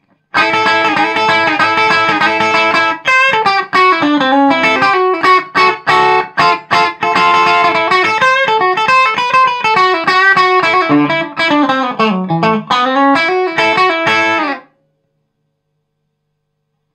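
Gretsch Electromatic hollow-body electric guitar with humbucker-sized P90 pickups, played through a Vox AC15VR amp in a rockabilly style. It opens with a ringing chord held for about three seconds, then moves into quick picked single-note runs with bends and slides. It stops abruptly about two seconds before the end.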